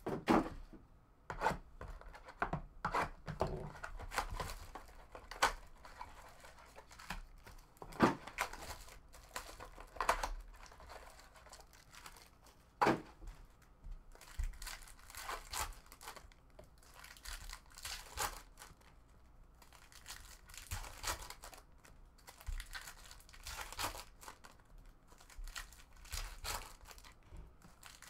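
Foil wrappers of 2018 Topps Finest baseball card packs being torn open and crinkled by hand: an irregular string of short tearing and rustling sounds.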